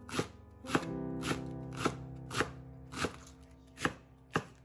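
Kitchen knife chopping cabbage into fine shreds on a wooden cutting board, a sharp cut about twice a second. Soft background music plays underneath.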